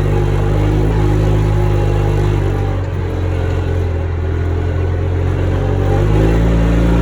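Engine of a four-wheel-drive farm vehicle running steadily while driving, its note changing about six seconds in.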